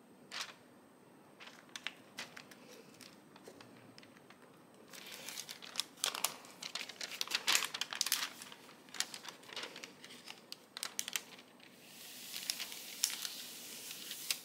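Crinkling and rustling of a diamond painting canvas and its plastic cover film handled by hand: a few scattered crackles at first, denser crinkling from about five seconds in, and a softer rubbing as the canvas is smoothed flat near the end.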